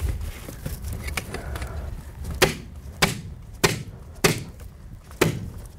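Mallet hammering a tube lock (snap track) base into place over insect screen: five sharp knocks about half a second apart, starting about halfway through.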